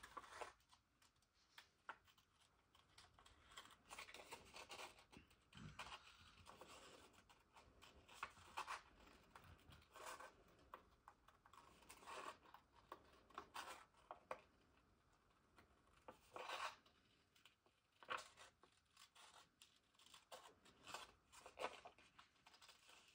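Scissors snipping paper, cutting around the printed design of a paper label: faint, short snips in irregular clusters with pauses between them.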